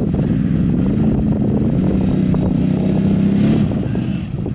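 ATV engine revving in deep mud: it climbs about a second in, holds one high, steady pitch, then eases off about three and a half seconds in. Other quad engines run under it as a low rumble.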